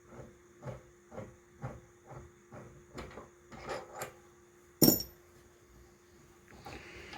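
Soft knocks about twice a second, then one loud metallic clank with a short high ring a little before five seconds in: steel tooling being handled and set down on a workbench.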